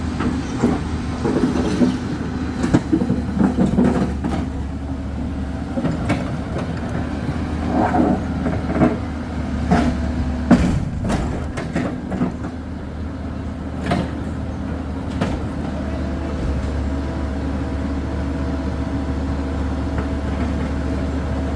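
Excavator diesel engines running steadily, with scattered short knocks and clanks through the first two-thirds and a higher steady tone joining about two-thirds of the way in.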